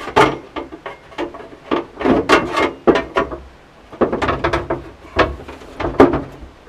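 A hand-made sheet-metal reinforcement brace being shifted and pressed against the inner body panel of a 1975 VW Rabbit: a string of irregular metallic knocks and scrapes with short ringing tails as the brace is worked into place.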